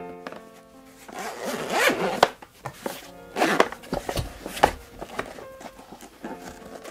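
Zipper on a fabric mess-tin carry case being pulled open in several rasping strokes, the loudest about a second and two seconds in. Background music with steady notes plays underneath.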